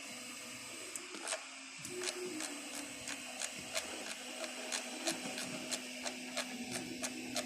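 3D printer's stepper motors whining steadily as the print head travels along the X axis, with a regular light ticking about three times a second.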